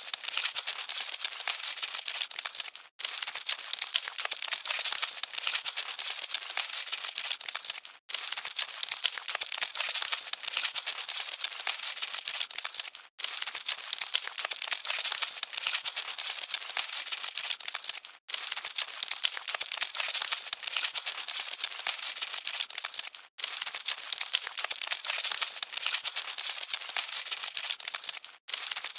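Dense, fine crackling and scratching of cockroaches scuttling. It is a short loop that drops out briefly and starts again about every five seconds.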